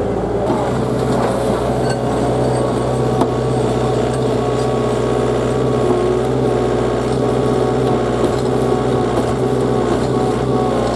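Diesel engine of heavy equipment running steadily at constant speed, with a few light clicks.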